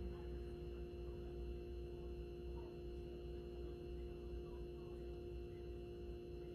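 Steady hum with a constant pitched tone and no change in pitch, over a low drone.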